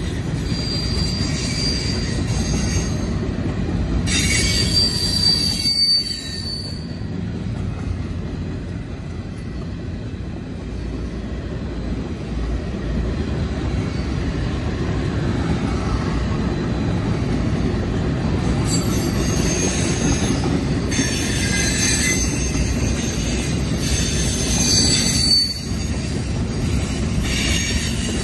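Freight cars rolling past on a curve: a steady rumble of wheels on rail, with high-pitched wheel squeal from the curve coming and going, loudest about five seconds in and again through the last ten seconds.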